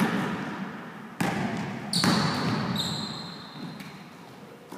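Basketball bounced hard on a gym floor, three dribbles a second or less apart, each bounce echoing in the hall.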